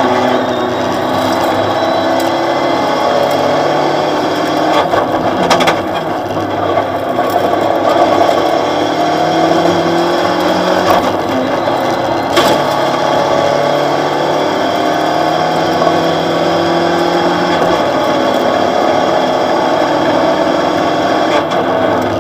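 Opel Astra OPC rally car's engine heard from inside the cabin, revving hard and climbing and dropping in pitch through the gear changes, over road and gravel noise, with a couple of sharp knocks from the car.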